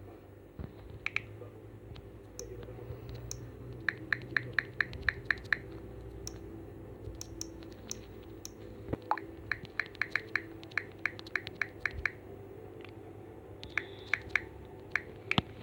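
Typing on a phone's touchscreen keyboard: runs of light key-tap clicks, about five a second, in three bursts, over a steady low hum.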